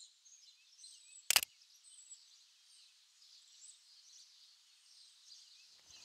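Faint chorus of distant songbirds, many short high chirps and whistles overlapping. One sharp, loud click cuts in about a second in.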